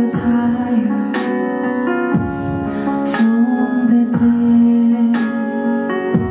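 A woman singing a slow melody into a microphone over instrumental accompaniment, holding long notes, with soft hissing consonants between phrases.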